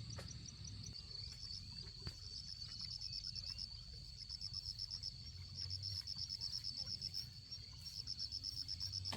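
Insects chirping: a steady high buzz with rapid, rhythmic trains of pulses running over it, over a faint low hum.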